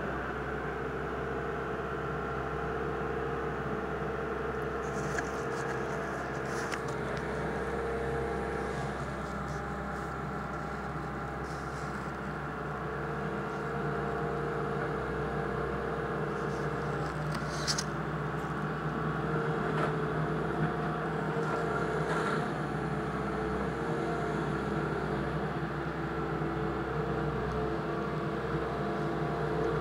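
Excavator engine running steadily as its bucket works the wreckage of a demolished building, with a few short, sharp knocks and scrapes of debris now and then.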